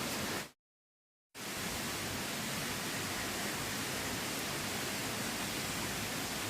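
Steady rushing of river water, with a sudden drop to dead silence for just under a second about half a second in before the rushing resumes.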